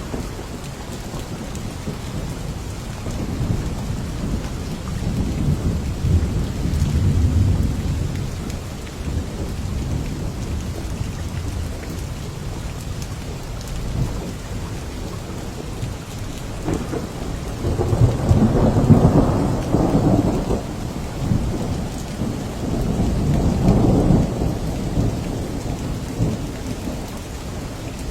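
Steady heavy rain with rolls of thunder. The first low rumble swells and fades early on, and two louder rolls follow in the second half.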